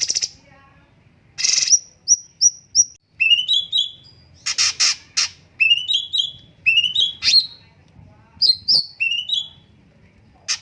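Cucak cungkok songbird singing lively, repeated phrases: short notes that sweep sharply upward, quick runs of high chips, and a few loud rattling bursts.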